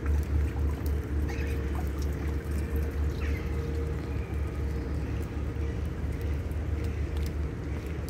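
Outdoor ambience in light rain: a steady low rumble with a few faint bird calls and scattered light ticks.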